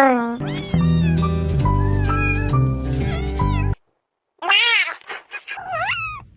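Cat meows over a music track for about three and a half seconds, which cuts off suddenly; after a brief silence a cat meows twice, each call gliding in pitch.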